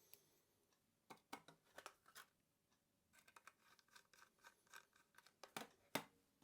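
Quiet clicks and scrapes of small laptop parts being handled and fitted: a few clicks about a second in, a run of small rattling clicks in the middle, and two sharper clicks near the end.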